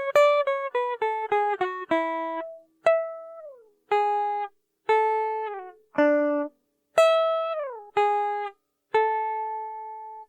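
Background music on a plucked guitar: a quick run of single notes, then slower notes, several of them sliding down in pitch.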